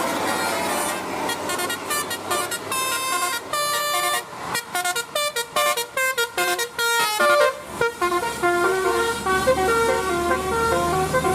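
A bus's telolet horn, a set of tuned air horns, playing a tune: a quick run of short notes through the middle, then longer held notes over the bus's engine rumble.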